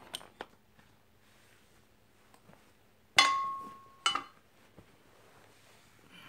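Old metal hand tools clinking as they are handled in a pile. About three seconds in, one piece of metal strikes another with a sharp clank that rings with a clear tone for about a second, then a short clatter follows.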